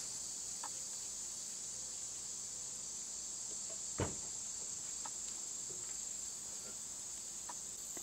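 Steady, high-pitched insect chorus, a continuous buzz, with one sharp click about halfway through.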